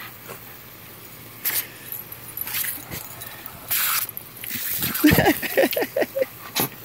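Water from a garden hose spray nozzle hissing and splashing in short bursts as dogs snap at the jet. About five seconds in there is a quick run of short growls and grunts from a dog.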